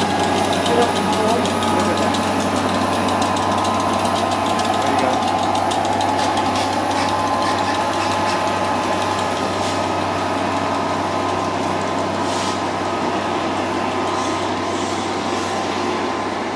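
Class 67 diesel locomotive's two-stroke V12 engine running steadily as it hauls a rake of passenger coaches out of the station, the coaches rolling past with a few faint clicks.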